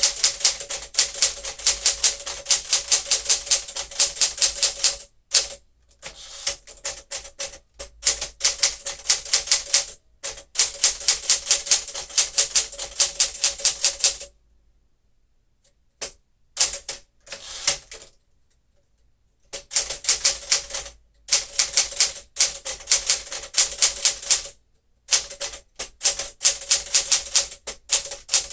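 1964 Smith-Corona Sterling manual typewriter being typed on: fast runs of key strikes, several a second, broken by short pauses, with a longer lull of only scattered strokes about halfway through.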